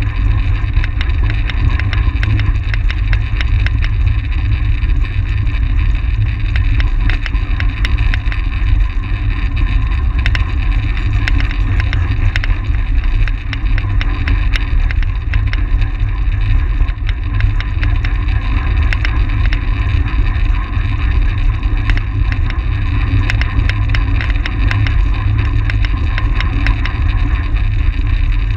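Wind buffeting the microphone of an action camera on a track bicycle ridden at race speed: a loud, steady low rumble with a fine crackle of ticks over it.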